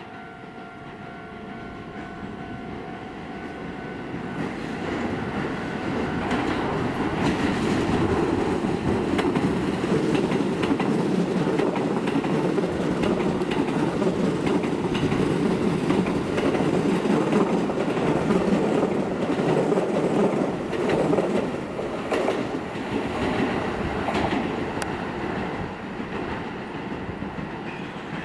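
Keisei Main Line electric commuter train running past on the rails, its sound building up, staying loud for a long stretch with rapid wheel clicks over the rail joints, then fading away. A steady high tone is heard in the first few seconds.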